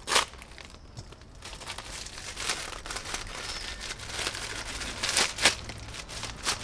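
Plastic mailer bag crinkling and rustling as it is torn open by hand and a plastic packet of soft lures is pulled out. There are several sharp crackles, the loudest just after the start and again a little past the middle.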